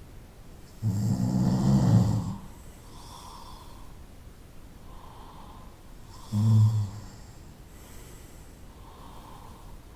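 A person snoring: a loud snore about a second and a half long near the start and a short one about six and a half seconds in, with faint soft breaths between.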